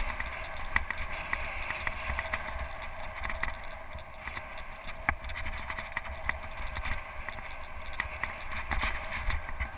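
Mountain bike ridden fast on a dirt trail: steady tyre and riding noise with a low rumble of wind on the microphone, broken by frequent small clicks and rattles as the bike goes over bumps.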